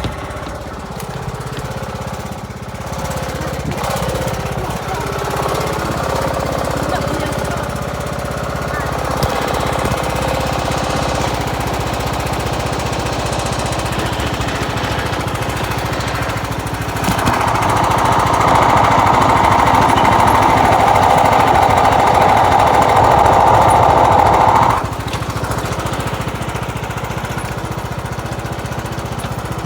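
Riding lawn mower engine running steadily. Just past the middle, a louder noise joins for about eight seconds, then cuts off suddenly.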